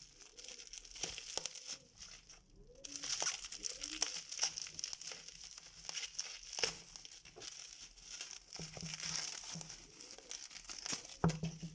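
Plastic wrapping on a smartphone retail box crinkling and rustling as the box is handled, with scattered small clicks and taps.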